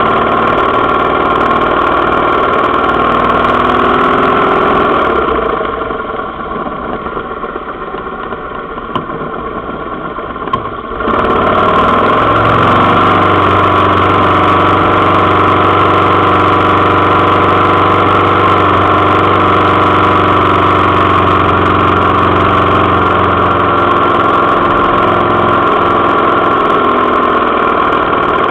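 Motorcycle engine running steadily at low speed, heard from the bike itself. It turns quieter about five seconds in, then comes back louder and fuller about eleven seconds in.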